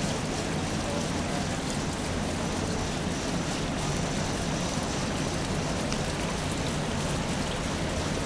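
Steady patter and rush of running water, like water spilling over a pool's overflow edge into its gutter, with a low steady hum beneath.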